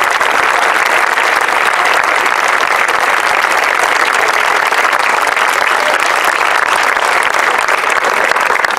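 A crowd applauding, many hands clapping steadily and densely.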